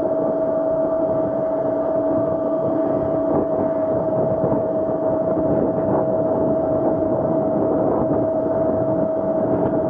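Razor SX500 electric dirt bike cruising at a steady speed: its electric motor and drivetrain hold one constant whine over a steady rumble of tyres rolling on brick paving.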